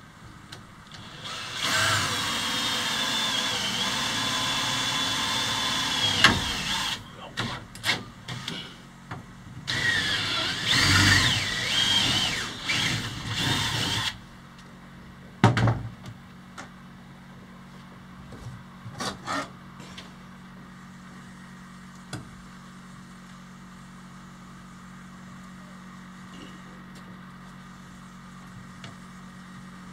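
Cordless drill running twice as it drills into an overhead frame tube: a steady whine for about four seconds, then a second run whose pitch wavers under load. A few sharp clicks and knocks follow.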